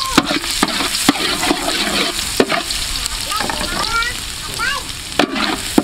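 Chopped garlic sizzling in hot oil in a large metal pot, with a ladle stirring it and knocking against the pot now and then.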